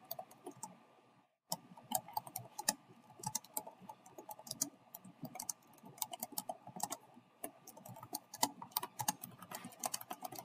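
Typing on a computer keyboard: a quick, irregular run of key clicks, with a short pause about a second in.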